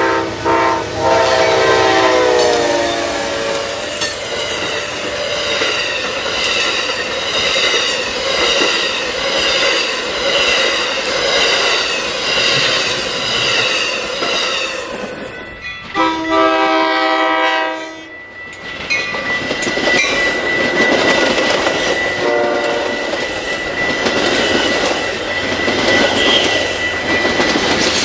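Amtrak passenger train sounding its air horn at a grade crossing, then its bi-level Superliner cars rolling past with clickety-clack wheel noise. A second horn blast comes a little past halfway, and near the end a Metra commuter locomotive passes with a steady high bell-like tone over the train noise.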